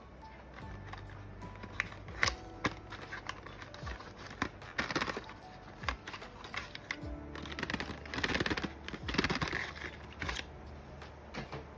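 Background music with scattered sharp clicks and bursts of rustling, the sounds of handling the keyboard kit and its packaging.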